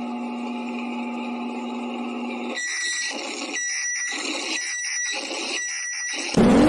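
Emergency alert alarm tones: a steady low electronic buzz, then four pulsed alert beeps about a second apart, then a loud siren suddenly starting to wind up in pitch right at the end.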